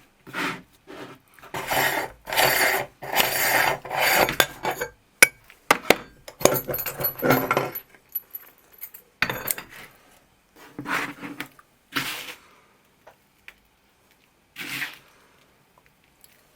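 Meat grinder crushing Oreo cookies: a series of rough grinding, rasping bursts, a second or two each with short gaps, getting sparser toward the end.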